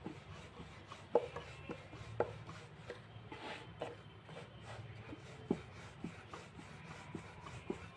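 Rolling pin worked back and forth over a sheet of rice-flour dough on a floured board: soft rubbing with scattered light knocks, the sharpest about a second in.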